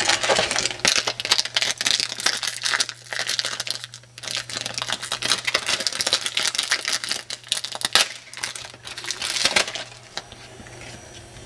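Foil trading-card pack wrapper being torn open and crinkled, a dense crackling that thins out near the end. A steady low hum runs underneath.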